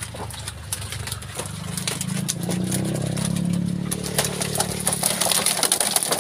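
Live pangasius catfish flapping and slapping against each other and the plastic drum as a netful is tipped in, the slapping growing dense and wet from about two-thirds of the way in. An idling engine hums steadily underneath.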